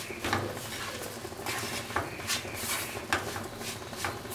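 Wooden spatula stirring and scraping a dry, crumbly mixture against a nonstick pan, in repeated irregular strokes.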